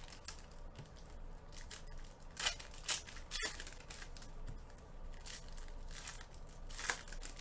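Foil trading-card packs being torn open and crinkled by hand. There are several sharp rips, the loudest a little past two seconds in and again near the end, with softer rustling of wrappers and cards between them.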